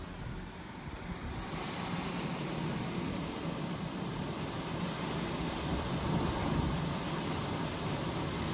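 Hurricane wind outside a shuttered house, heard from indoors as a steady low rumbling rush that builds over the first couple of seconds.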